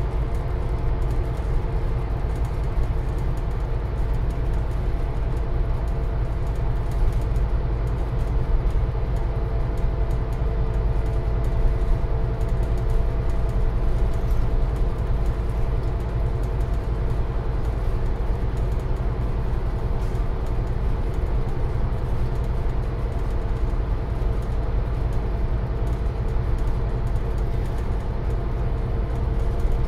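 Scania N250UD double-decker bus under way, its five-cylinder diesel engine running at a steady pace with a low rumble and road noise, heard inside the lower deck.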